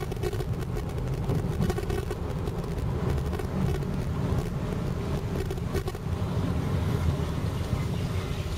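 Car driving along a street, heard from inside the cabin: a steady low rumble of engine and tyres.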